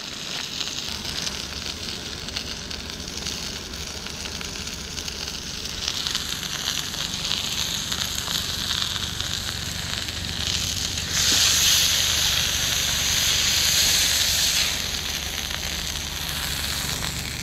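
Marinated turkey schnitzels frying in oil in a pan: a steady sizzle. It grows louder about six seconds in and is loudest for a few seconds near the end, while a schnitzel is lifted and turned over with a fork.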